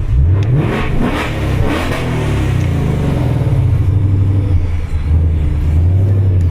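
2025 Mustang GT's 5.0-litre V8 exhaust: a short rising rev in the first second or so, then a steady low rumble at low revs.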